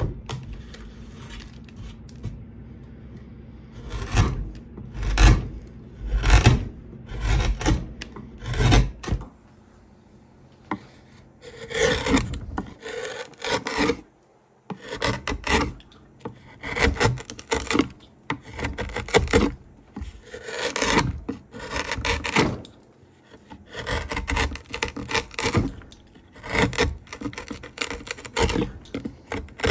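Hand tools shaving wood for a fiddle: repeated scraping strokes across a board clamped in a vise, then, after a short break, a carving gouge paring curls from a wooden plate in quicker, denser strokes.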